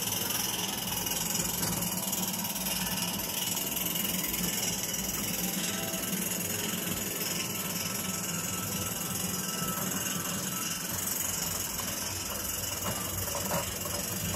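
Small gas-fired live-steam model locomotive running steadily with hissing steam and mechanical rattle, working hard to haul a long 18-axle train through tight R2 curves with its burner and steam supply turned up. A couple of sharper clicks come near the end.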